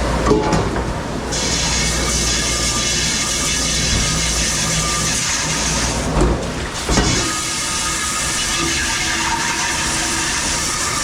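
Dishwasher running with a steady spray and hiss that gets stronger about a second in, broken briefly by a couple of knocks about six seconds in.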